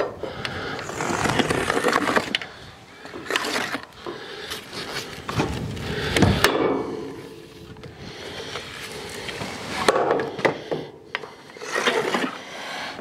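Irregular scraping, rustling and knocking as steel wall cladding and its foil insulation are worked on by hand at the top of the wall, with a few sharp knocks.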